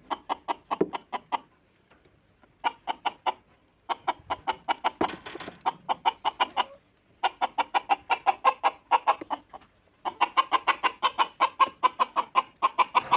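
Village chickens (ayam kampung) clucking in long runs of quick short clucks, several a second, with a few brief pauses between runs.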